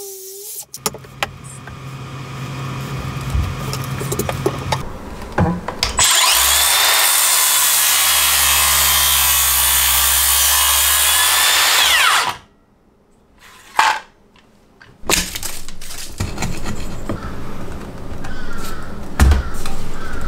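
Makita HS631DZSB 18 V cordless circular saw running at speed and cutting through a wooden post for a few seconds, its high whine sagging slightly under load, then spinning down. A short near-silence with one thump follows, then irregular knocks and scraping as the cut waste is worked out of the notch.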